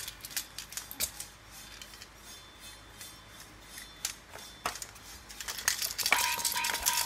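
Scattered plastic clicks and clacks from a baby play gym's hanging toys and piano panel being knocked, then about six seconds in the toy's electronic melody starts up.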